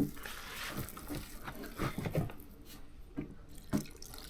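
Wet bhajia batter of flour, vegetables and water being stirred by hand, with irregular soft squelches and splashes.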